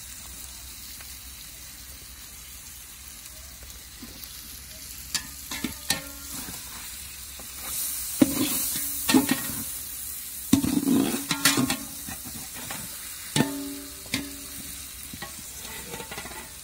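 Metal spatula scraping and knocking against a large metal cooking pot as a whole turkey is turned in hot masala, over a steady sizzle. The knocks begin about five seconds in, come in irregular clusters, and the pot rings briefly after each one.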